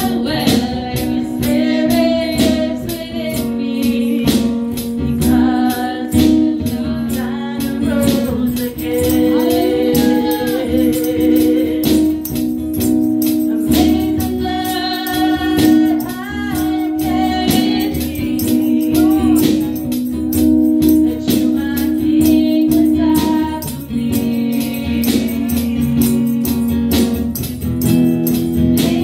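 A woman leads a gospel worship song, singing into a microphone with backing singers, over sustained instrumental chords and a steady percussion beat.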